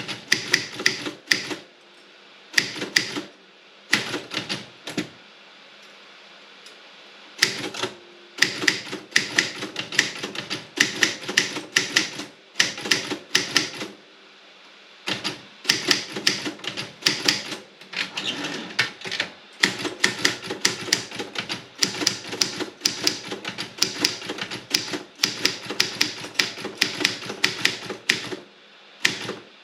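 Robotron 24 manual typewriter being typed on: runs of sharp keystroke clacks, several a second, broken by short pauses.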